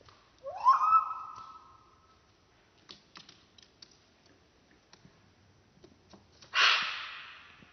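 Budgerigar vocalising: a pitched call that rises and then holds, fading over about a second and a half, a few soft clicks, then a harsh, noisy squawk near the end.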